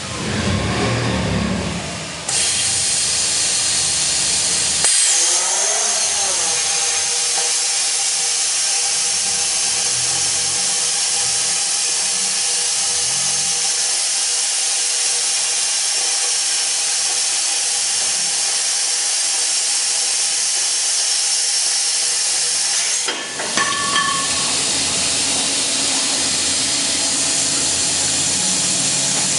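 Plasma torch on an automated pipe-cutting machine cutting a steel pipe: a loud, steady hiss that starts about two seconds in. It dips briefly about three-quarters of the way through, then the hiss carries on.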